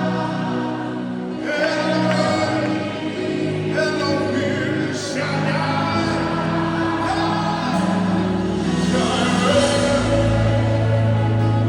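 Gospel worship music with a choir and voices singing long held notes over a sustained bass.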